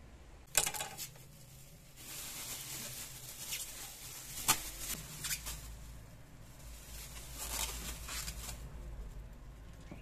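Dried corn cobs being handled and stacked on a stone countertop: a sharp knock about half a second in, then dry rustling and clattering with a few more knocks, along with the crinkle of the plastic bag they come from.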